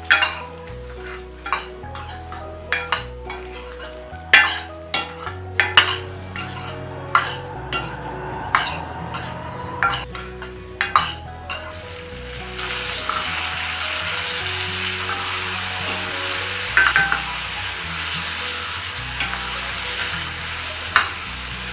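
Onion, ginger, garlic and whole spices sautéing in hot oil in a pan, with a spoon stirring and knocking against the pan many times. About twelve seconds in, the sizzling turns steadily louder and the knocks become few. The mixture is being fried until its raw smell cooks off.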